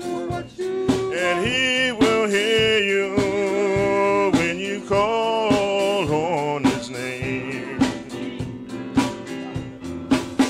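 Male gospel vocal group singing in close harmony, with live band accompaniment including a drum kit keeping a steady beat.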